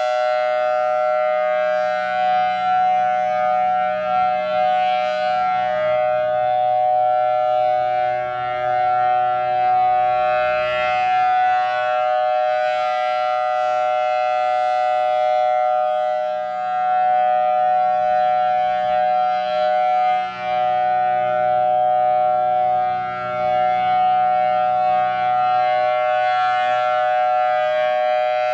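Federal Signal Thunderbolt 1000T dual-tone outdoor warning siren sounding a steady two-note chord that holds its pitch, loud, with the level swelling and dipping every few seconds as the rotating siren head sweeps past.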